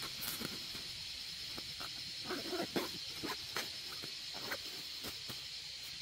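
A steady, high-pitched insect chorus with a hiss, and over it irregular small clicks and crackles, thickest in the middle.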